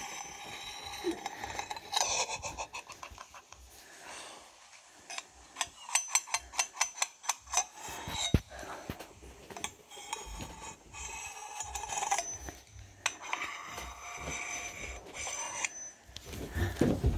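Metal knife blade tapping and scraping against a gun held close to a microphone, ASMR-style, heard played back through a screen's speaker. A quick run of metallic clicks, about six to eight a second, comes near the middle, with slower scraping and rubbing before and after.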